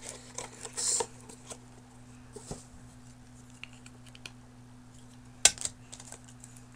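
Plastic packaging and small plastic parts handled by hand: a brief crinkle about a second in, then scattered small clicks and taps, with one sharp click about five and a half seconds in. A steady low hum runs underneath.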